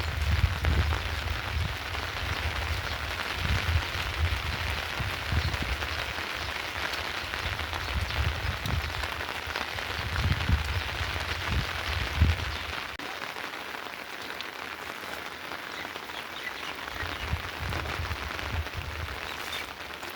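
Steady rain falling, an even hiss throughout. A low, uneven rumble runs underneath and stops about two-thirds of the way in.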